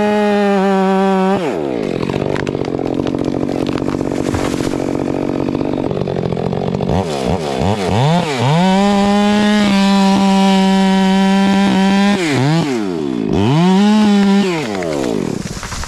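Stihl two-stroke chainsaw running, held at full throttle, dropping to idle after about a second and a half. After about five seconds of idle it is blipped up and down, held at full throttle for about three seconds, blipped again, held high once more for about a second, then drops back toward idle near the end.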